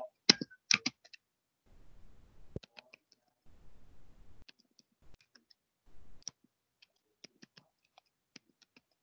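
Computer keyboard typing: irregular key clicks, loudest in the first second, then lighter scattered keystrokes.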